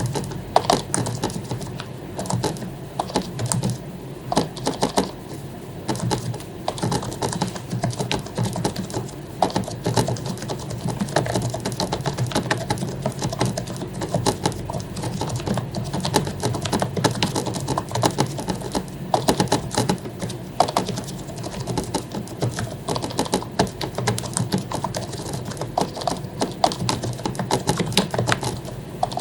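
Continuous typing on an HP membrane keyboard with lubed keycaps, a dense, irregular run of key clicks over a steady low hum.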